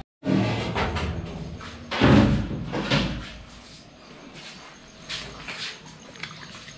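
Clanking and scraping of metal cookware as a ladle and skimmer knock against a large aluminium cooking pot. The loudest clatter comes about two to three seconds in; after that only a few lighter knocks are heard.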